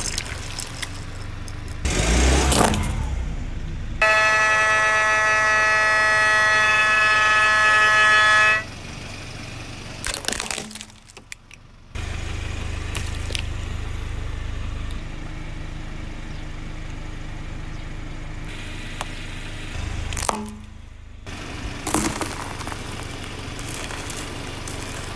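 A car tyre rolling slowly over small objects on concrete, crushing them with several short cracks and squelches, over a low engine rumble. About four seconds in, a loud steady squeal with many overtones holds for about four and a half seconds, then cuts off suddenly.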